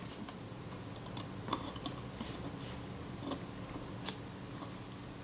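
About half a dozen light, scattered clicks and scrapes of a scalpel blade and fingers on the metal body of a Kodak Retina II camera, as the leather covering is prised off the bottom plate, over a faint steady hum.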